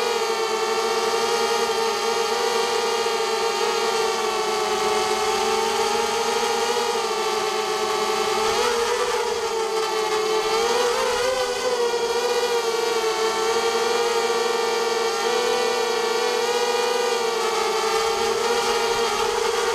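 Whine of a carbon-frame hexacopter's six brushless 2300 kV motors and propellers in flight, steady and high-pitched, dipping and rising briefly in pitch about halfway through as the throttle changes.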